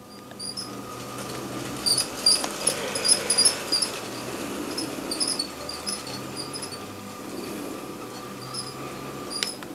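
Bluebrixx brick-built Big Boy locomotive and its motorized tender running on plastic toy track: a steady rolling rumble with a busy run of short, high squeaks and clicks from the wheels working through the tight curve, ending with a sharp click near the end.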